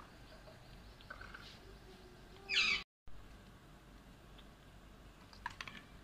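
Alexandrine parakeets on a wire cage: scattered sharp clicks and taps of beaks and claws on a plastic toy and the cage wire, with a cluster of quick clicks near the end. About halfway through comes one short harsh parrot squawk, the loudest sound, which cuts off abruptly.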